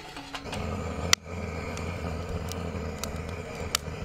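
Newly lit split-wood kindling crackling in a fire pit, with scattered sharp pops, the loudest about a second in, over a low steady rumble.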